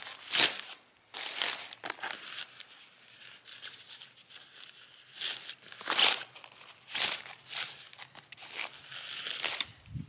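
Tent fabric rustling and crinkling as a tent pole is pushed through its sleeve, in uneven bursts that are loudest about half a second in and again around six and seven seconds in.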